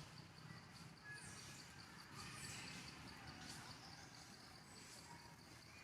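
Faint insect chirping in a steady, evenly pulsing high trill, with a few short, faint bird chirps over quiet outdoor background.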